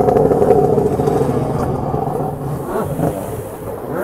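Tuned 1200 engine of a stand-up jet ski revving, its pitch rising and falling as the craft spins through the water. It is loudest in the first two seconds and fades toward the end.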